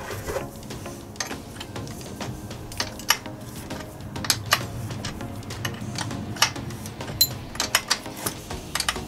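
Steel hand tools clinking: an open-end spanner and a socket extension knocking together on a bicycle crank bolt, an irregular series of sharp metallic clicks that comes thicker near the end.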